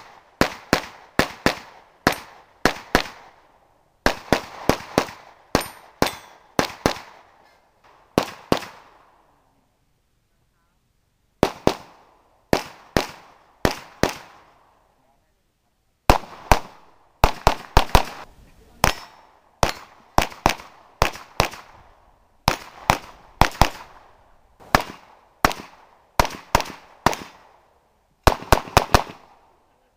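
Rapid pistol fire from an IPSC Open-division competition pistol: sharp cracks in quick strings of two to four shots, with pauses of a second or two between strings and one longer break about a third of the way in.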